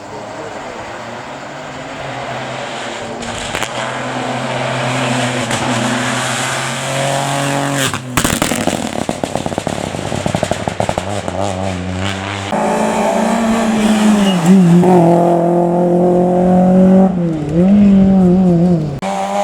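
Rally cars driven hard, their engines revving up through the gears and dropping back on lifts and shifts. A stretch of rapid crackling comes around the middle. The sound changes abruptly a couple of times, as from one car or clip to the next.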